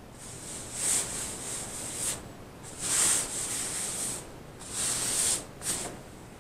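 Hands rubbing and smoothing Mod Podge-coated fabric flat on a journal cover board: a series of hissing rubbing strokes, each a second or so long, with short pauses between.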